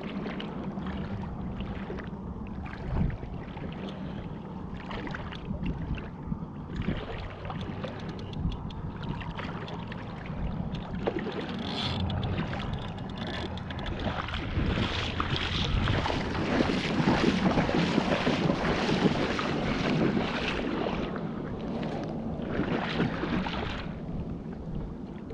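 Wind buffeting the microphone over water, under a steady low drone; the rushing noise swells for about ten seconds past the middle, then eases off.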